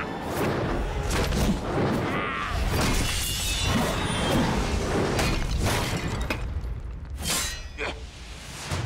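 Fight sound effects of sabres: repeated swishes and sharp metallic clashes and hits over background music, with a bright metallic ring about seven seconds in.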